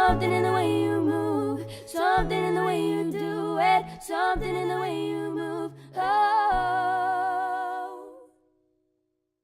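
Closing bars of a pop song: held sung vowels over sustained bass notes in several short phrases, ending about eight seconds in, then silence.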